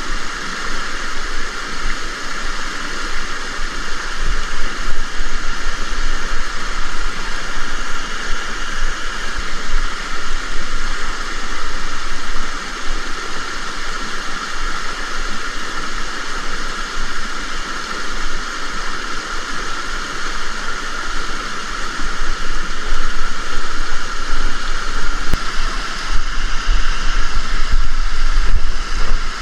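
Steady loud rush of river water flowing over rocks, growing a little louder in the last few seconds with a few low knocks.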